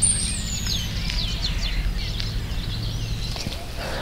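Several wild birds calling and singing at once, a quick mix of chirps and descending whistles, the first a loud falling whistle. A low steady hum lies underneath and fades near the end.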